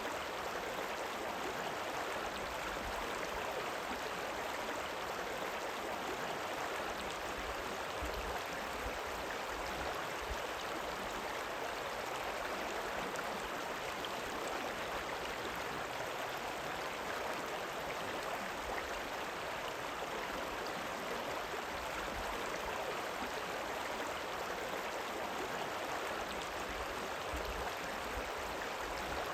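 Rippling river water running in a steady, even rush, with no single splashes or breaks.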